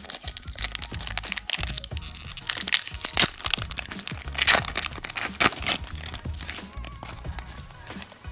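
Foil wrapper of a Pokémon card booster pack crinkling and crackling as it is handled and torn open, loudest about halfway through, over background music.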